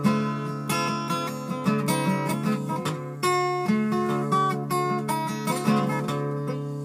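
Steel-string acoustic guitar strummed in a steady rhythm, with bass notes that move under the chords.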